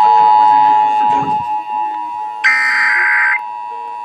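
Emergency Alert System broadcast tones: a steady two-tone hum, with music fading out under it in the first second, then about two and a half seconds in a one-second burst of screeching digital data tones, the encoded SAME header of the alert, cutting off abruptly.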